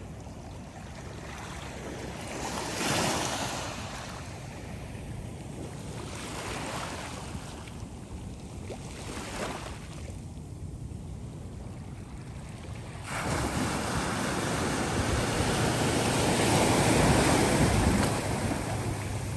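Ocean surf washing and wind buffeting the microphone, with a few swells in the wash. About two-thirds of the way through the sound steps up abruptly to a louder, fuller rush of surf and wind.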